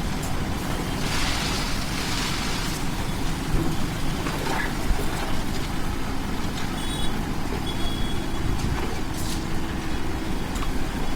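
A heavy engine running steadily with a low rumble, with a hissing rush lasting about two seconds near the start.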